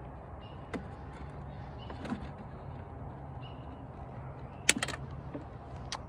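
Wire cutters snipping through aftermarket HID headlight wiring: a few light clicks, then a sharp double snap about three-quarters of the way in, over a steady low hum.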